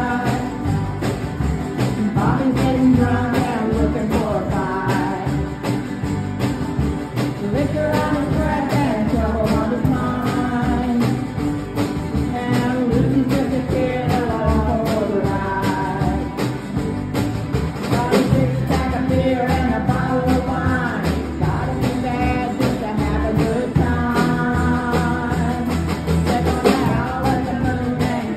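Live ukulele band playing a song, with strummed ukuleles and a banjo over a bass and a drum kit keeping a steady beat, and a woman singing lead.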